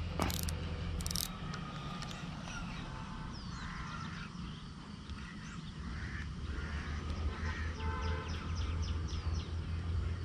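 Birds chirping and calling, with many short high chirps that come thickest in the second half, over a steady low rumble. Two sharp clicks come in the first second or so.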